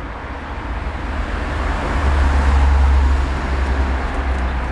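Low rumble of a road vehicle passing, swelling about two seconds in and then easing off.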